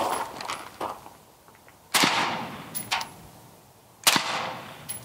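Two suppressed 5.56 rifle shots from a 10.5-inch AR-15 pistol fitted with a Sig Sauer SRD762 30-calibre suppressor, about two seconds apart. Each is a sudden report with a short decaying tail.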